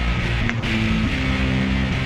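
Background music with guitar chords.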